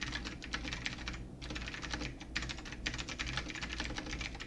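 Rapid typing on a computer keyboard, a quick run of key clicks with a brief pause about a second in.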